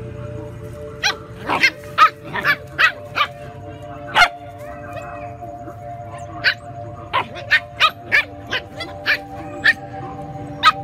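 Dogs barking in short, sharp yaps, a quick run of about seven in the first four seconds and another of about nine from halfway on, as a puppy and a young dog squabble over food. Steady background music plays underneath.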